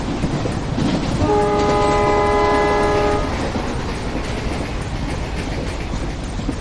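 Train horn sounding one blast of about two seconds, starting about a second in, over the steady rumble of a running train.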